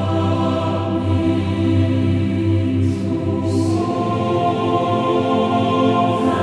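Background music: slow, sustained choir-like chords, changing chord about halfway through.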